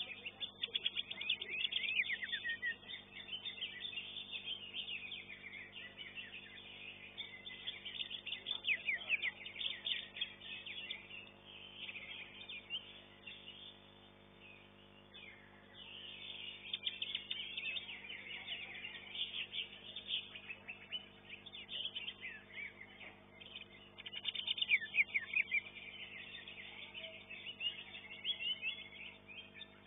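Greater green leafbird (cucak hijau) singing in rapid, chattering high phrases that come in bursts with short pauses, over a faint steady low hum.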